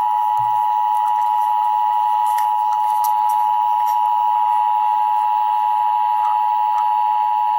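Emergency Alert System attention signal: two steady tones near 853 and 960 Hz sounded together as one loud, unbroken, harsh alarm tone, the signal that an emergency alert message is about to follow.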